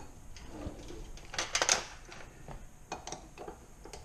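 A few light clinks and knocks of bottles and containers being handled on a kitchen counter, the sharpest cluster about a second and a half in.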